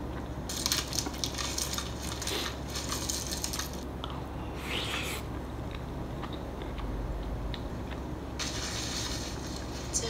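Eating sounds: crunching and chewing food close to the microphone, with light clicks of chopsticks and a wooden spoon on a ceramic bowl, in two spells of a few seconds each. A low steady hum runs underneath.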